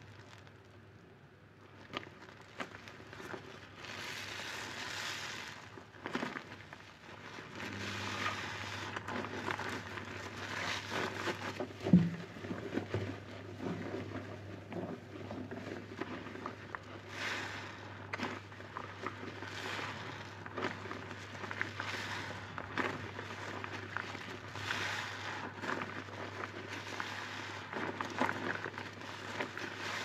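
A soapy sponge lathered with dish detergent and Cif cream cleaner is squeezed and squished over and over by a rubber-gloved hand in foamy water, giving wet squelching and the crackle of bursting suds, a swell every second or two. A low hum sets in about eight seconds in, and there is one sharp knock about twelve seconds in.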